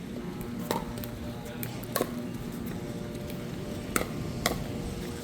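Pickleball paddles striking the ball during a rally: four sharp pops, the last two in quick succession.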